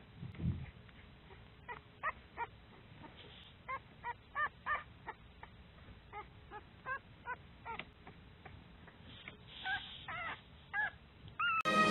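Three-week-old pit bull puppies whimpering: a string of short, high squeaks, each rising and falling in pitch, coming in little bunches.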